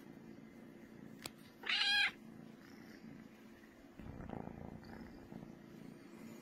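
A black kitten purring steadily, with one short high-pitched meow about two seconds in. About four seconds in, a louder low rumble sets in.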